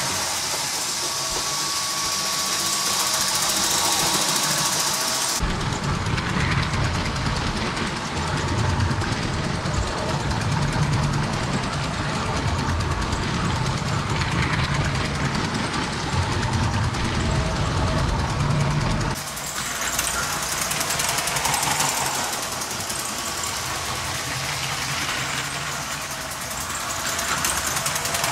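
Diesel locomotive engine running, in edited sound clips: it cuts abruptly to a deeper rumble about five seconds in and back to a lighter, brighter engine sound near nineteen seconds.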